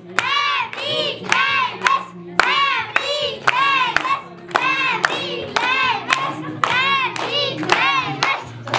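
Singing voices in short rising-and-falling syllables with rhythmic hand clapping, a few claps a second.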